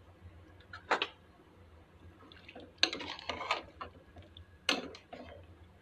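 A metal ladle knocking and scraping against a metal cooking pot of simmering fish soup, in three short clattery bursts about a second in, around three seconds in and near the end, over a low steady hum.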